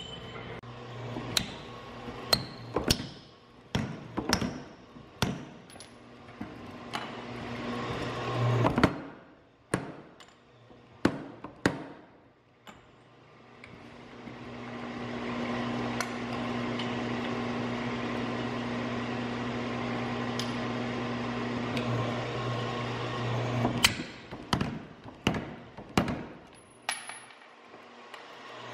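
Single, irregular hammer blows ringing on a red-hot steel axe head over the first several seconds. After a short pause a steady machine hum from a power hammer's motor builds up for about ten seconds, and near the end the blows start again at about two a second.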